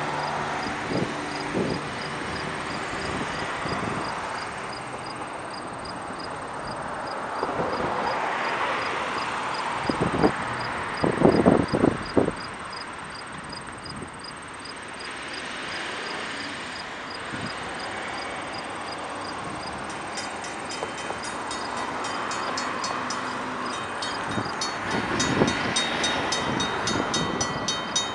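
Grade-crossing warning bell ringing in a steady rapid rhythm, faint at first and much louder and clearer for the last third. Road traffic passes throughout, and a few heavy thumps stand out near the middle.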